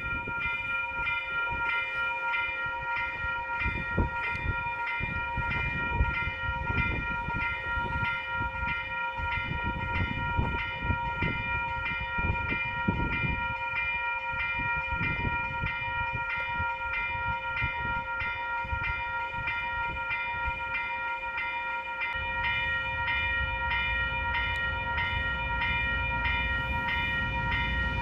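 Level crossing warning bell ringing steadily as KiwiRail DXC and DXB diesel locomotives approach. The locomotives' low engine rumble grows steadier and louder about three quarters of the way in.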